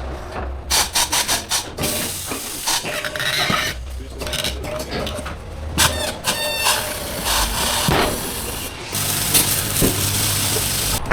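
Tyre-fitting work on a large wheel: a quick run of sharp knocks about a second in, then clatter and rubbing of metal tools on the wheel. A short fast rattle comes a little past the middle, and near the end there is a hiss over a low steady hum.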